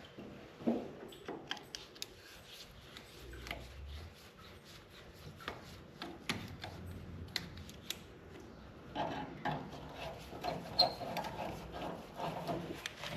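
Scattered clicks, light metal clinks and rubbing as hand tools and an upper radiator hose are worked loose on an engine. The handling gets busier about nine seconds in.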